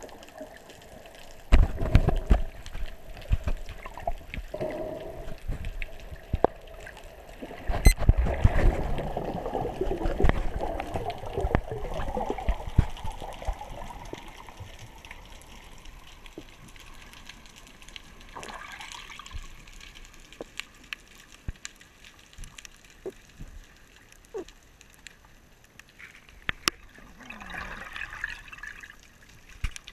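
Water splashing and sloshing around an action camera as a freediver moves at the surface and goes under, in two loud rough stretches about a second and a half in and again from about eight to thirteen seconds. After that, muffled quiet underwater with scattered sharp clicks.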